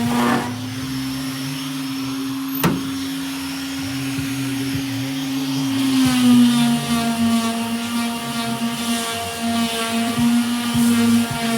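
Electric power sander running steadily on a truck bed panel, a constant motor whine whose pitch drops slightly about six seconds in. A single sharp click comes a little under three seconds in.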